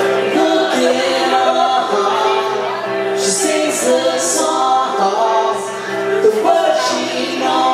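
Live pop-rock cover music: sustained accompaniment chords with singing.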